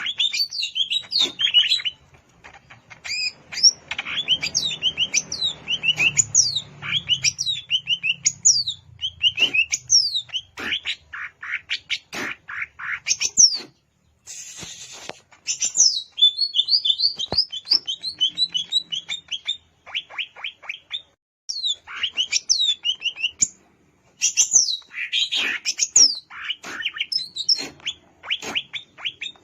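Cucak ijo (leafbird) singing: a fast, varied run of sharp chirps and falling whistles, broken by a few short pauses.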